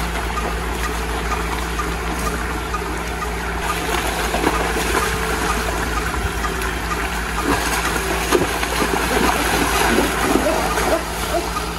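Water running in a shallow irrigation channel over a steady low machine hum. From about four seconds in, heavy, irregular splashing as a calf leaps and thrashes in the water.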